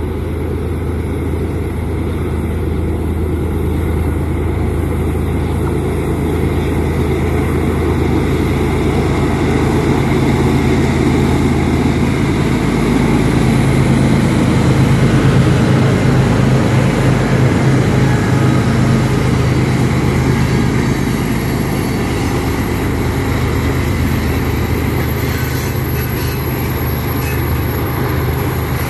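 Diesel locomotives of a Union Pacific freight train working hard up a grade. The low engine drone is steady, changes pitch about halfway as one unit passes and the next comes up, and is loudest just past the middle, with a thin high whine joining in later.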